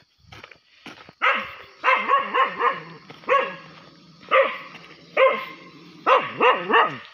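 Dog barking repeatedly, about a dozen sharp barks starting about a second in, some coming in quick runs of three or four.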